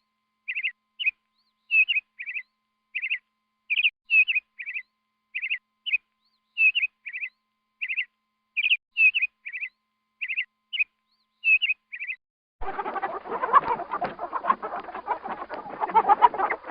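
A chick peeping in short, slightly falling chirps, one or two at a time, about two a second, with dead silence between. About twelve seconds in, this gives way to a dense chatter of many chickens clucking together.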